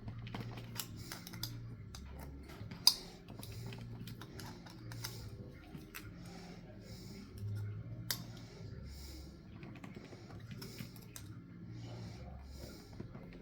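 Light, irregular clicks and taps of small parts being handled while an air horn is taken apart. A sharp click stands out about three seconds in, and another comes about eight seconds in.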